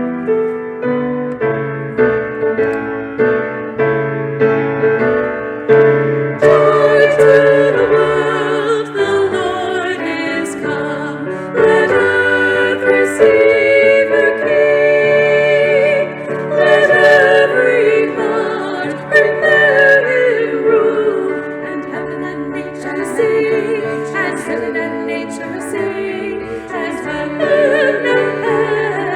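Piano accompaniment playing alone, then a women's vocal trio singing over it with vibrato from about six seconds in.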